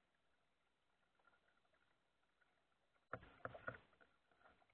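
Kayak paddling on water: faint small drips, then a brief cluster of three or four sharp splashing strokes about three seconds in.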